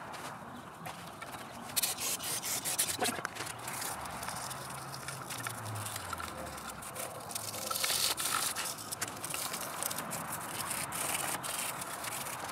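Small stiff bristle brush scrubbing oily carbon deposits out of the ports of a metal intake manifold runner plate, in quick short scraping strokes that come in bursts.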